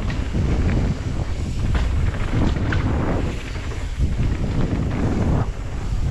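Wind rushing over the microphone of a mountain bike riding fast down a trail, a heavy low rumble that swells and dips, with scattered sharp clicks and rattles from the bike over rough ground.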